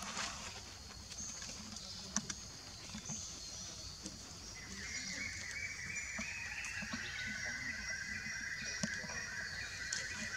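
Tropical forest ambience: a steady high insect drone, joined about halfway through by a lower, steady insect trill, with a few faint clicks.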